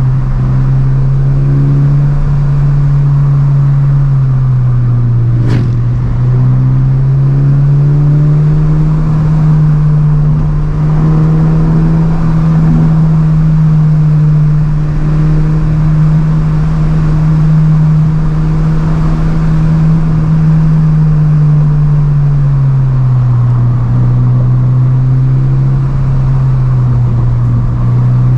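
Subaru BRZ's flat-four boxer engine running under way at a steady pitch. The pitch dips twice, early and again toward the end, and climbs back each time. There is one sharp click about five seconds in.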